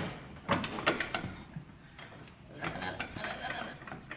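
Pry bars clinking and knocking against a front drive axle as it is levered out of the transmission. There are sharp metal knocks in a cluster in the first second or so, and a rougher run of scraping and clicking a little past the middle.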